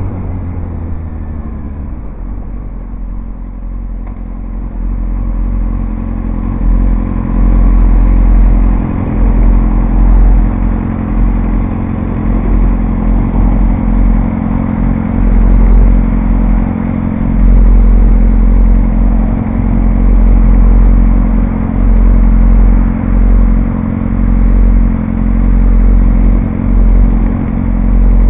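Sport motorcycle engine slowing in pitch as the bike rolls to a stop over the first two seconds, then idling steadily. An uneven low rumble surges and drops every second or two underneath.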